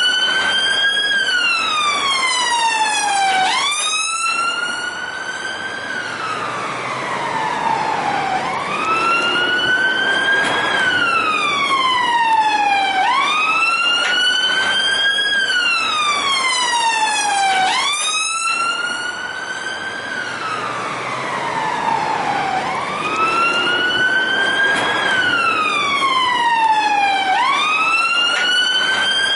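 Police car siren in wail mode: its pitch sweeps up quickly and falls away more slowly, over and over, about every four and a half seconds.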